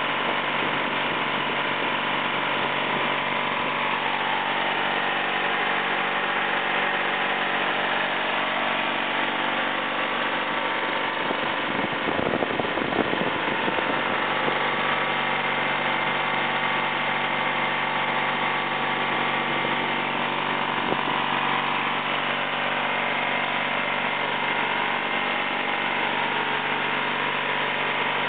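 Twin-cylinder 18 HP Briggs & Stratton gasoline engine running steadily at a constant speed, driving the chiller's automotive-type refrigeration compressor and belt-driven water pump.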